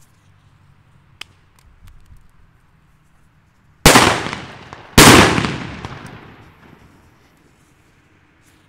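Two loud bangs from Hua Liang flash-powder petard firecrackers going off about a second apart, each echoing and dying away over a couple of seconds. A small crack sounds about a second in.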